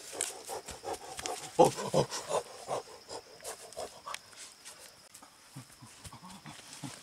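A man making rough, animal-like grunts in quick bursts, loudest about two seconds in and dying down to a few faint grunts after about four seconds.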